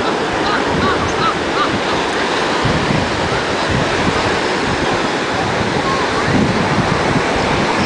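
Ocean surf washing on a beach as a steady rush of noise, with wind buffeting the microphone. Faint distant voices come through briefly near the start and again about six seconds in.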